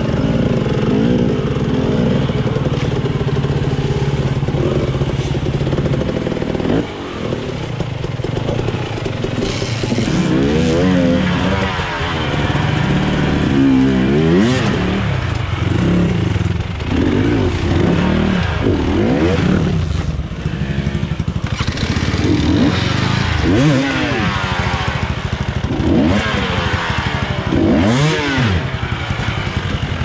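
Enduro dirt bike engine running at a fairly steady note for the first several seconds, then revved up and down again and again.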